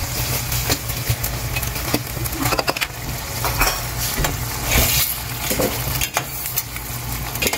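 Sauce bubbling and sizzling in a stainless steel pan as fried vegetable manchurian balls are dropped in and stirred with a metal spoon, over a steady low hum. The spoon clicks against the pan many times.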